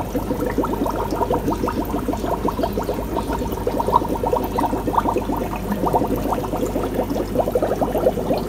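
Aquarium aeration bubbling steadily in a fish tank: a dense, fast patter of air bubbles breaking at the water surface.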